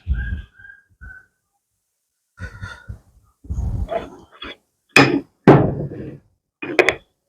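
A string of irregular knocks and thuds, about eight, as objects are handled and set down, the loudest two around the middle.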